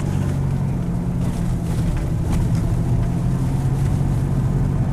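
2001 Ford Ranger's 4.0-litre V6 running under way, heard from inside the cab as a steady rough drone. The engine is missing on a cylinder and makes the truck shake, which the owner puts down to worn spark plugs and wires.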